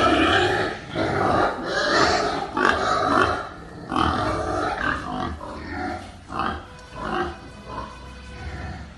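Pigs in a pen giving a run of short grunting calls, about one or two a second, growing quieter in the second half.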